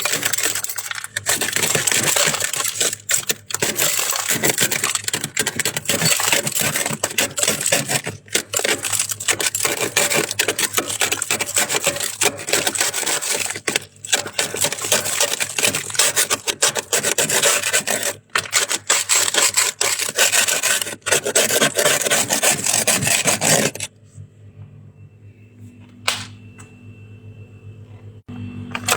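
Soft white freezer frost ice crunching crisply in a dense, continuous crackle with brief breaks, which stops abruptly near the end.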